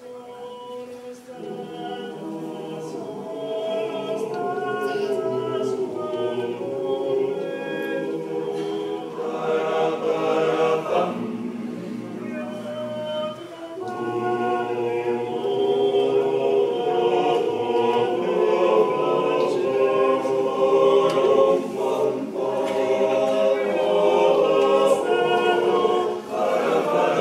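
Male voice choir singing a cappella in several-part harmony, with brief pauses for breath between phrases and growing louder in the second half.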